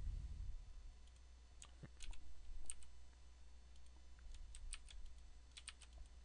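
Computer mouse and keyboard clicks from repeatedly duplicating and applying a rotation in a drawing program: about a dozen short sharp clicks, several in quick pairs, over a low steady hum.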